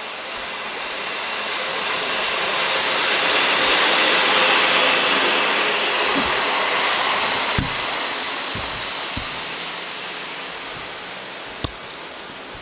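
Passenger train of České dráhy coaches running past the platform: a steady rush of wheels on rail that swells and then fades, with several sharp clacks over rail joints and points in the second half.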